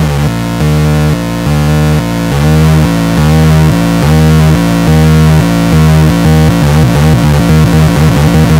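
Handmade noise synth's four cross-modulated square-wave oscillators droning in a loud, distorted buzz. The tone flips back and forth between pitches in a stepping, chopping rhythm that speeds up into a rapid flutter near the end.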